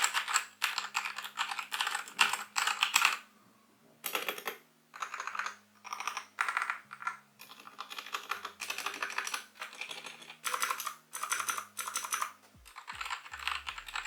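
Typing on a Ziyoulang T60 (CPSTECH T60) 60% mechanical keyboard fitted with modded red linear switches. Fast runs of keystrokes come in bursts of a second or two, with short pauses between them.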